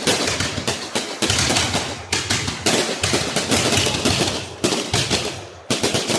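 Fireworks going off in a dense, rapid string of crackling bangs, with a new loud volley about every second.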